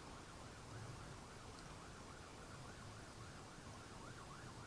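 Faint siren with a quick rise-and-fall wail, about three swings a second, going on steadily.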